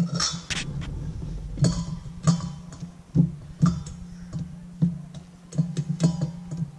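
Background music, a mellow guitar track, with short sharp clicks at uneven intervals through it.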